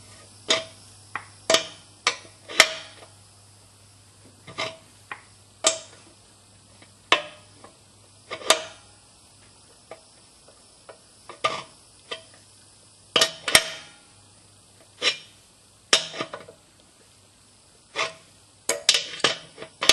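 A wrench clinking on a new drain plug in a Craftsman air compressor tank as the plug is tightened: sharp metallic clicks with a short ring, about one a second and in quick clusters near the start and end, over a faint steady low hum.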